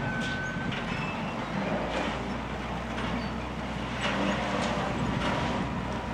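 Volvo L120 wheel loader's diesel engine running steadily under work, with a few sharp knocks spread through it and a faint high whine early on and again near the end.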